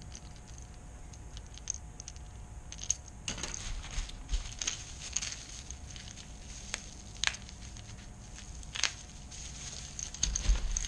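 Crinkling and rustling of wrapping being pulled off a crankbait lure, with scattered small clicks and ticks of handling.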